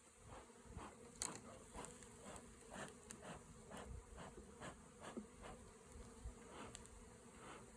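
Honey bees buzzing faintly around an opened hive, with many brief louder buzzes as single bees pass close by.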